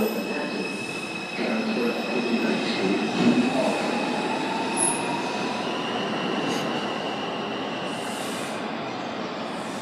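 R142 subway train moving through the station, its steel wheels squealing on the rail with steady high tones over a rumble. A faint whine rises slowly in pitch from about three and a half seconds in.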